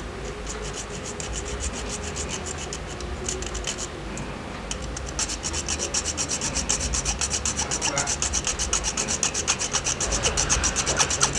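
Fine-toothed hobby saw blade cutting through a small model-car part in quick back-and-forth strokes, a rapid rasping. The strokes are light and scattered at first, then become steady, faster and louder about five seconds in.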